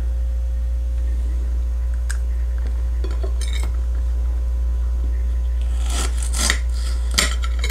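Serrated kitchen knife slicing through a thick-walled unripe green Candy Cane pepper on a plate: a few light clicks and knocks, then crisp cutting strokes with the blade tapping the plate near the end, over a steady low hum.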